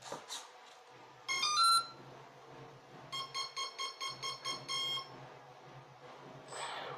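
An RC plane's brushless-motor electronic speed controller sounding its power-up tones: a quick run of stepped musical notes, then a string of about eight short, even beeps at roughly four a second.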